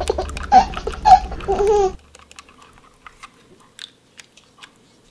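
A baby's giggling and babbling voice, cut off suddenly about two seconds in. After it come faint, scattered sticky clicks of slime being pressed into a small plastic pumpkin bucket.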